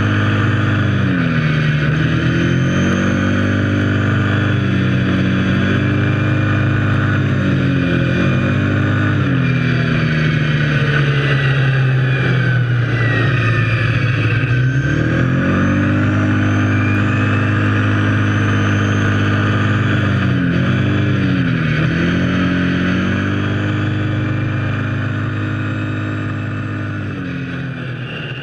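Kawasaki KFX 700 quad's V-twin engine running under way. The pitch drops and climbs again several times as the throttle is eased off and reopened, and the sound fades near the end.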